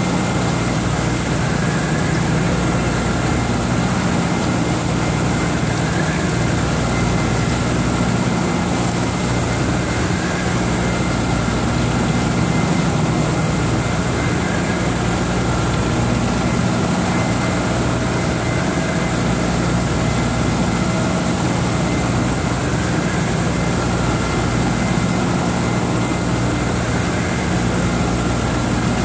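Skoda W 200 HB CNC floor boring mill cutting a metal block: a steady machining noise made of a low drone and a continuous high whine.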